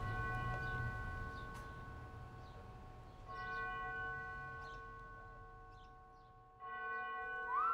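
A bell struck three times, about three seconds apart, each stroke ringing out and slowly fading.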